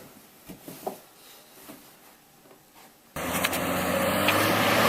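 Faint short rustles, then about three seconds in a loud motor-driven machine starts abruptly and runs steadily with a low hum under a hiss.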